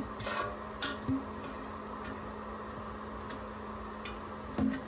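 A few light metallic clicks and taps from a metal paint can and its lid being handled and pried around the rim, the loudest near the end, over a steady low hum.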